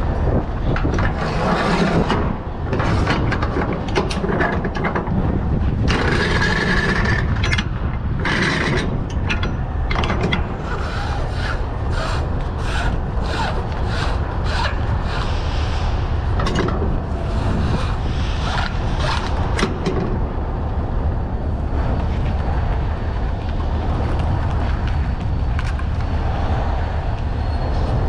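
Yellow cargo strap webbing being pulled and handled against steel wire rod coils and the flatbed's side rail: scraping and rubbing with many sharp clicks and knocks, thickest through the first two-thirds. A steady low engine rumble runs underneath.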